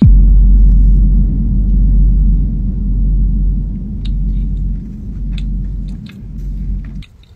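A loud, deep rumble that starts suddenly and cuts off about seven seconds in, with a few faint clicks under it.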